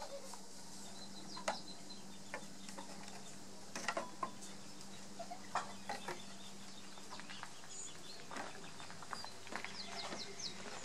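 Faint farmyard ambience: scattered small knocks and clicks, and a few short high bird chirps, ending in a quick run of chirps near the end, over a faint steady hum.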